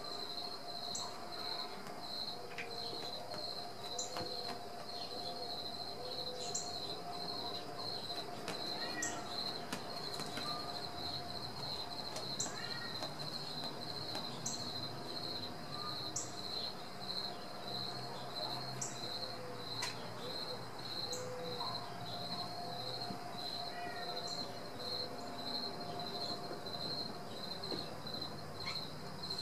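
High-pitched rhythmic chirping, about three chirps a second, with a faint steady lower tone beneath it.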